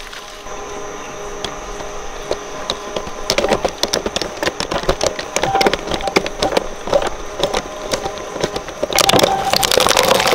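Shredder crunching up a plastic Minions toy: a rapid, irregular stream of cracks and snaps over a faint steady high whine, growing denser and louder about nine seconds in.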